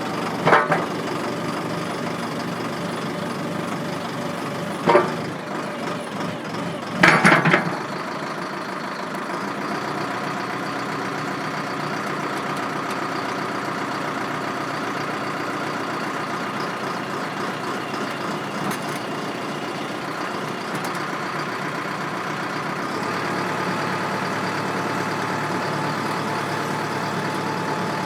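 Backhoe loader's diesel engine running steadily, with a few sharp loud knocks in the first eight seconds. The engine gets slightly louder near the end.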